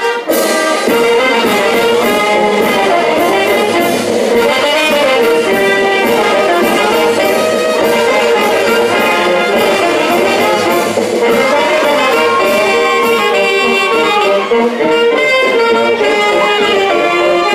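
Brass band playing dance music loudly and without a break. It comes in abruptly just after the start.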